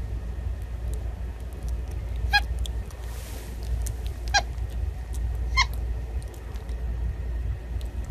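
A young white-faced capuchin monkey gives three short, high squeaks spaced a second or two apart, over a steady low rumble.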